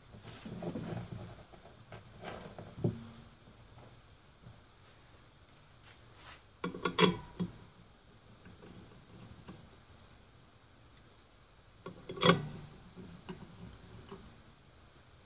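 Small metal parts and hand tools clinking and clicking as they are handled at an e-bike hub motor's axle, with two sharper clicks about seven and twelve seconds in.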